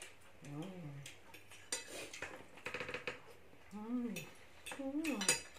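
Steel knife and fork clinking and scraping on a china plate as meat in gravy is cut, in a string of short separate strokes. Short bits of voice come in between.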